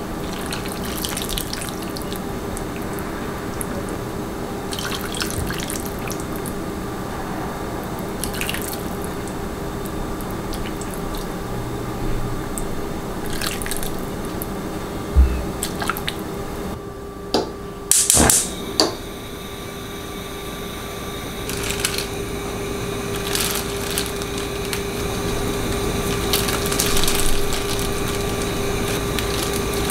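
Hot galbitang broth ladled into an earthenware pot, pouring and dripping. A thump comes about halfway through, then a few clicks. After that comes the crinkle of a plastic-gloved hand handling kimchi on a plate.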